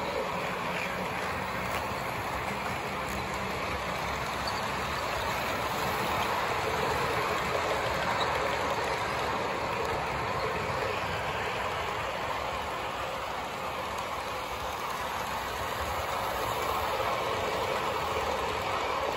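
Model train running on its track: a steady rolling rumble from the wheels and locomotive motor, rising a little as the cars pass close by.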